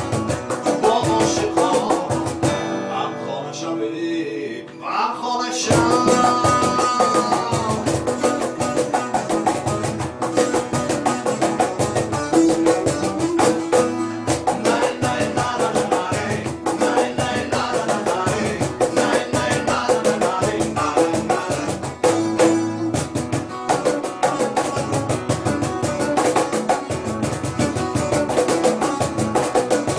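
Live Tajik ethnic-fusion band playing: a cajon keeps a steady hand-struck beat under strummed acoustic guitar, a plucked long-necked Pamiri setor and a second guitar, with a voice singing. The cajon drops out for a few seconds about three seconds in, then comes back.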